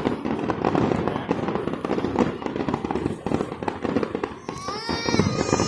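Fireworks finale: a dense barrage of rapid bangs and crackles with no gaps. Near the end a high-pitched tone rises and then holds.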